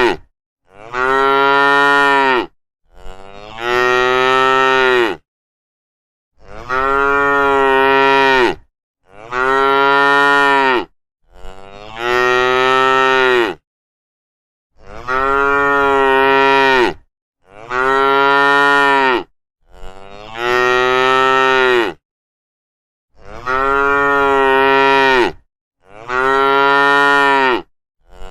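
Cattle mooing: a series of about ten long moos, each about two seconds, with short silent gaps between them.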